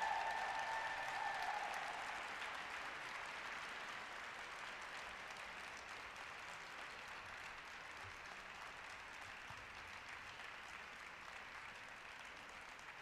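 Audience applauding, slowly fading; the last held note of music dies away in the first second or two.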